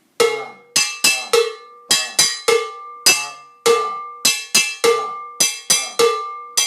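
Handheld cowbell (campana) struck with a stick in a steady, quick salsa pattern in 3-2 clave. A fuller, lower-ringing stroke comes about once a second, with lighter, brighter strokes in between, and each one rings on briefly.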